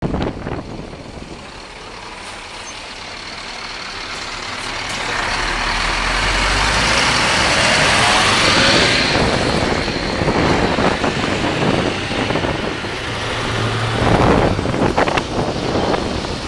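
Scania R560 V8 truck running, its sound growing louder over the first eight seconds, then staying loud and uneven.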